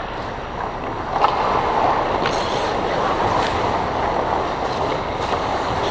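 Ice hockey skate blades scraping and carving on the ice, with several sharp clacks of sticks and puck.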